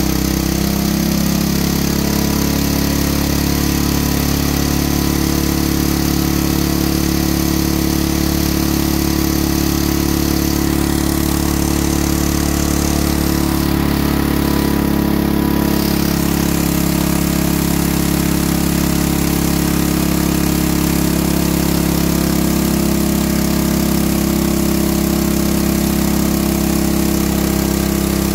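Portable generator's engine, fitted with the Thunderstorm generator device, running steadily under load from a fan heater and a UV bulb.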